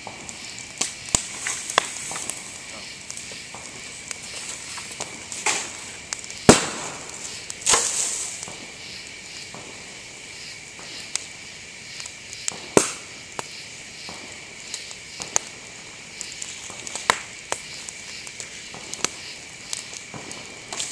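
Dry bamboo and brush burning in a campfire, crackling with irregular sharp pops as heated bamboo segments burst; the loudest pop comes about six and a half seconds in. A steady high-pitched tone runs underneath.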